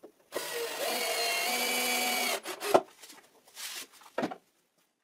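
Cordless drill/driver driving a screw through a plywood board into the wooden table rail: the motor whines steadily for about two seconds, then stops. A sharp knock follows, then a few fainter knocks.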